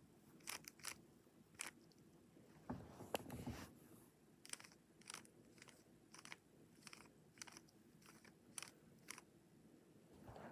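Faint plastic clicks of a GAN 3x3 speed cube's layers being turned one move at a time, about one or two turns a second, as an edge-insertion algorithm (R′ U′ R′ U′ R′ U R U R) is worked through.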